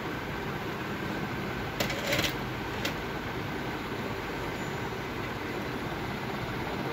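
Hitachi LCD projector's cooling fans running with a steady whoosh, the projector powered up and working after its temperature-fault repair. A brief rustle of clicks about two seconds in, and one more click shortly after.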